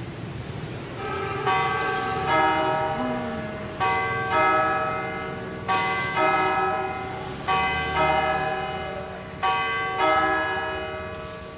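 Church bells ringing, starting about a second and a half in: strokes come in pairs roughly every two seconds, each one ringing on and fading, over a low background hum.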